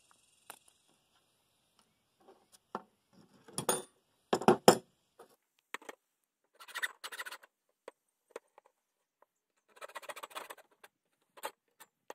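Handling noise as a hacksaw is worked against a rubber LP gas hose: scattered clicks, a few loud knocks about four seconds in, and two short scraping rasps later on.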